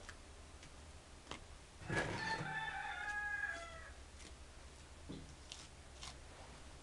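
A rooster crowing once, starting about two seconds in and lasting about a second and a half. Around it, faint taps of gloved hands pressing wet paper-pulp paste onto a wire-mesh form.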